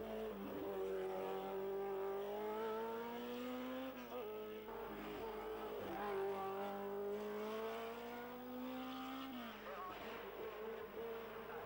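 Sport-prototype racing car engine at high revs, its buzzing note climbing steadily as the car accelerates uphill. The pitch drops and climbs again about four and a half seconds in, and falls sharply about nine and a half seconds in.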